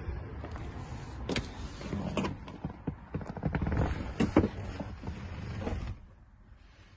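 Handling and rustling noise from someone getting into a car's driver's seat with a phone in hand, with several sharp clicks and knocks, the loudest about four seconds in. It stops abruptly about six seconds in.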